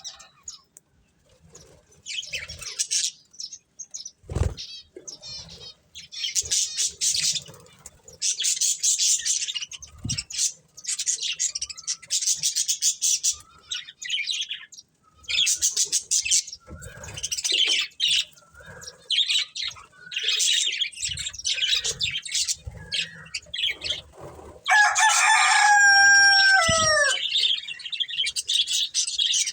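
Budgerigars chirping and chattering in quick, high-pitched bursts. A single low thump comes about four seconds in. Near the end a louder, drawn-out call slides down in pitch for about two seconds.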